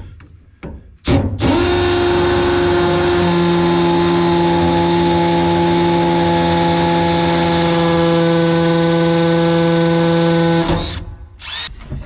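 Cordless drill running steadily at speed for about nine seconds. It gives a brief blip about a second in, spins up, holds an even pitch, and stops shortly before the end.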